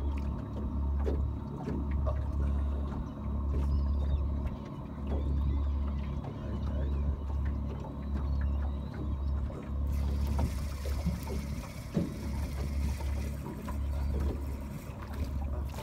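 Wind buffeting the microphone in uneven low gusts, over water lapping around a small boat, with scattered small clicks. About ten seconds in, a steady hiss joins.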